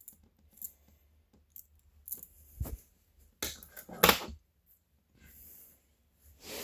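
Metal clicks and clinks of a balisong trainer being handled, its handles knocking together, in a few uneven clusters with the sharpest clack about four seconds in.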